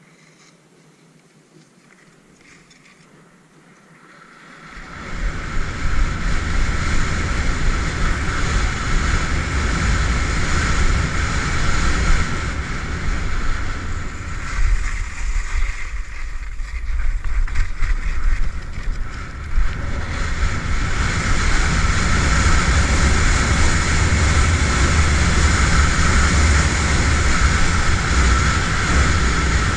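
Wind rushing and buffeting over the camera microphone and skis hissing over snow during a fast downhill ski run. It sets in about four and a half seconds in after a quieter start and eases for a few seconds around the middle.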